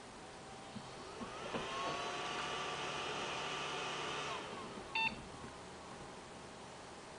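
MSI Fuzzy 945GM1 car PC powering on. A few clicks, then a whine that rises in pitch as it spins up and holds steady, dropping away after about three seconds. A single short POST beep follows about five seconds in.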